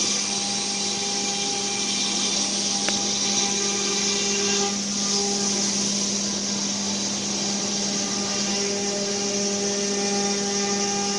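ATC CNC router spindle running at speed, a steady whine over a high hiss of cutting, with a second motor tone that breaks off and resumes several times as the machine moves.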